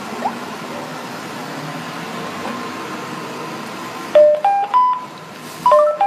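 Steady line hiss from a smartphone on speakerphone while a call dials out. About four seconds in, a simple electronic tune of pure beeping notes starts, stepping between a few pitches.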